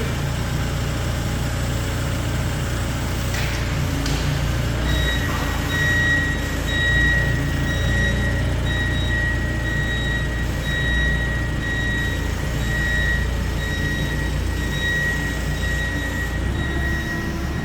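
A heavy vehicle's diesel engine running steadily. From about five seconds in, a reversing beeper sounds about once a second.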